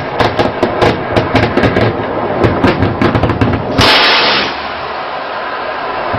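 Rapid machine-gun fire, about four shots a second, with irregular spacing. About four seconds in, a loud rush of noise lasts about half a second, and the shooting then stops, leaving a steady background noise.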